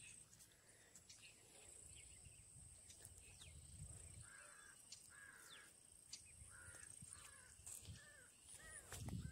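Crows cawing faintly: a string of short, harsh calls starting about four seconds in, over a thin steady high-pitched whine and low rumbling.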